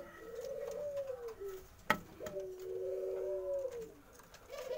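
Barbary dove (puter) cooing: two rolling coos about a second and a half each, with a third starting near the end. A single sharp click comes about two seconds in.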